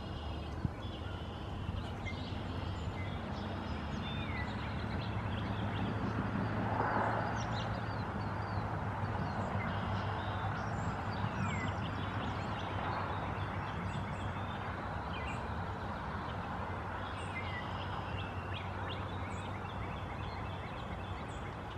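Outdoor ambience: a steady low rumble under scattered faint chirps of small birds.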